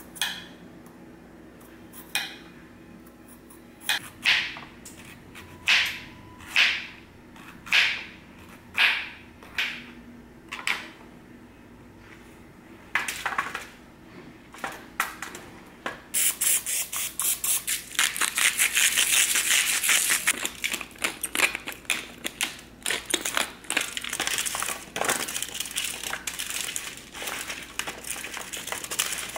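Vegetable peeler scraping down a raw potato in strokes about a second apart, then a few knife chops on a plastic cutting board. From about halfway through, potato and carrot chunks are tossed by hand on a foil-lined baking sheet, with steady crinkling of the aluminium foil.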